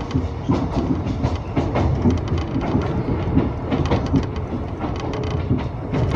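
Former Tokyu electric railcar of the Iga Railway running along the track, heard inside the cabin: a steady rumble of wheels on rail with frequent irregular clacks and rattles and a faint steady whine.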